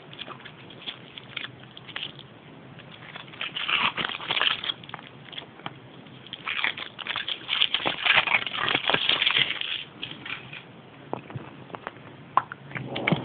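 Foil wrapper of a Kinder Surprise chocolate egg crinkling as it is peeled off and handled. The crackling comes in two spells: one about three to five seconds in and a longer, louder one about seven to ten seconds in.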